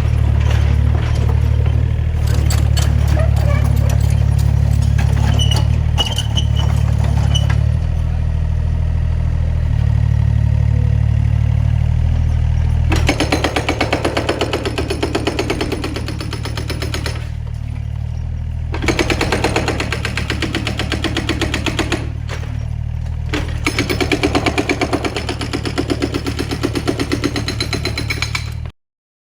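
Excavator demolishing a house: a steady low engine drone under scattered cracks and knocks of breaking material. About halfway through, a rapid, even hammering starts and comes in stretches. Everything cuts off suddenly near the end.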